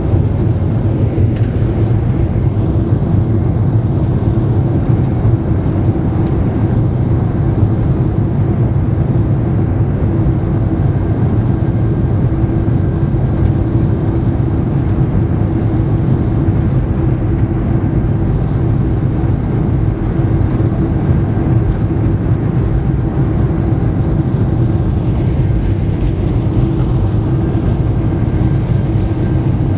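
Cabin noise of a Boeing 747-400 heard from a passenger seat: a loud, steady engine drone and rumble with a constant hum running through it.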